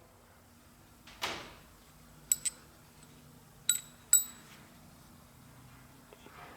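Steel engine exhaust valves handled and clinking against each other: a dull knock, then four short, bright metallic clinks in two pairs, each ringing briefly.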